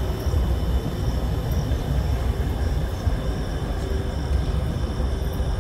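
Car running along a road, heard from inside the cabin: a steady low rumble of engine and tyres, with faint steady high tones above it.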